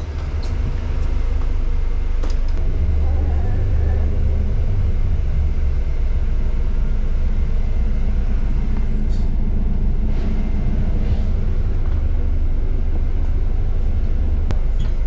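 Double-decker bus driving, heard from inside on the upper deck: a steady low engine and road rumble with cabin noise, and a few faint clicks.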